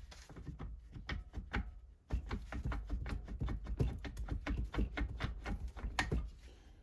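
Metal parts and tools of an old leather splitter clinking and knocking as they are handled during disassembly: a few light clicks at first, then a dense run of irregular clicks and knocks from about two seconds in until shortly before the end.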